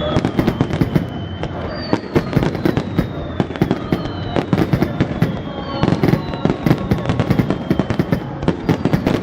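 Aerial fireworks going off in rapid succession: many sharp bangs and crackles overlapping throughout. High whistles glide slowly down in pitch several times over the bursts.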